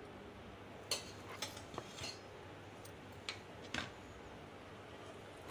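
Cumin seeds frying in oil in a nonstick pan, with a handful of scattered sharp ticks and pops over a faint background hiss.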